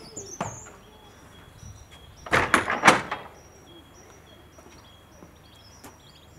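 A wooden shed door being shut: a brief knock, then a clatter of several bangs a little over two seconds in. Small birds chirp in the background.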